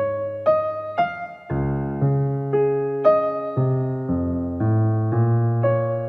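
Background piano music: a slow melody of single notes over held chords, a new note about every half second.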